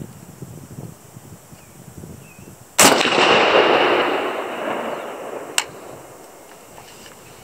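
A single shot from a PTR-91 semi-automatic rifle in .308 Win: one sharp crack about three seconds in, whose sound rolls away over the next two seconds or so. A short, sharp snap follows about three seconds after the shot.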